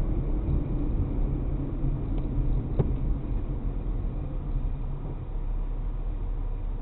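A car driving along a city street, heard from inside the vehicle: a steady low rumble of road and engine noise, with a single sharp click about three seconds in.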